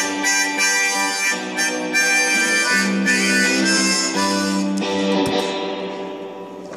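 Harmonica cupped in the hands against a microphone, playing a solo of held chords that change every half second or so, growing quieter near the end.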